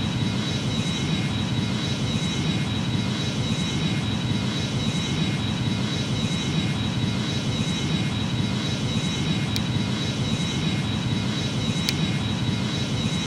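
Boeing 737 jet engines running steadily: an even, unbroken noise with a faint high steady whine. Two faint clicks in the second half.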